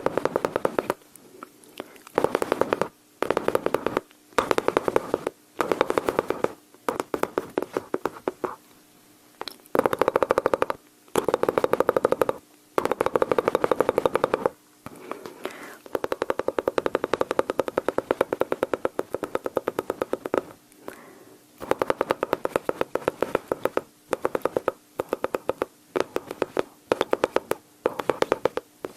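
Mouth sounds imitating gunfire close to the microphone: volleys of rapid, rattling clicks over a voiced buzz, like machine-gun fire. The volleys are short and separated by brief pauses, with one longer run in the middle.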